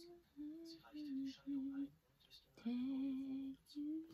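A woman humming or softly singing a slow tune to herself: a series of held notes with short breaks between them.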